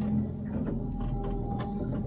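A small motor humming steadily, with a few light clicks over it.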